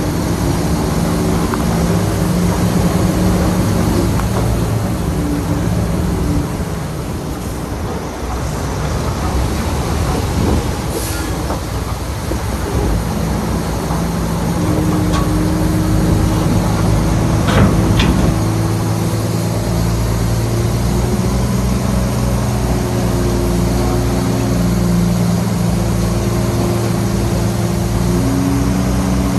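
Shantui crawler bulldozer's diesel engine running under load. The engine note eases off about a third of the way in and comes back stronger about two thirds in, with a few sharp metallic knocks.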